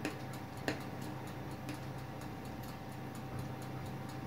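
A sharp knife pricking holes down through layered pastry, its tip clicking against the glass baking dish twice in the first second. Faint quick ticking and a steady low hum run underneath.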